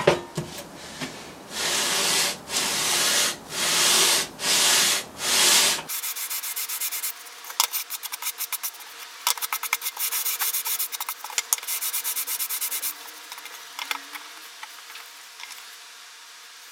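Spruce board being hand-sanded: about five long, slow rubbing strokes, then, after an abrupt change about six seconds in, quick short scratchy strokes for several seconds, thinning to a few light ticks near the end.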